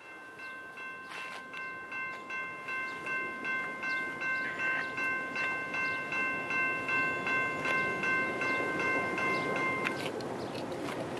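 Railroad grade-crossing bell ringing in a steady rhythm of about two and a half strikes a second, stopping about ten seconds in. Under it, the rumble of an approaching freight train grows louder.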